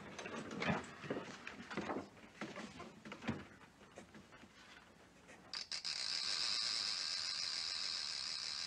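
Scattered light knocks and rustling, as of papers and objects being handled at a desk, then a steady high hiss that starts about halfway through and holds.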